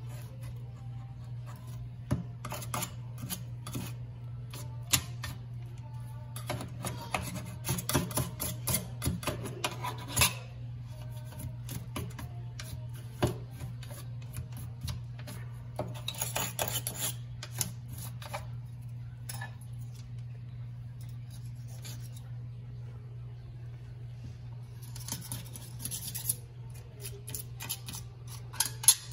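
A hand tool scraping and picking at old caulk along the edge of a stainless-steel sink, in bursts of rapid scratching and clicking with pauses between, over a steady low hum.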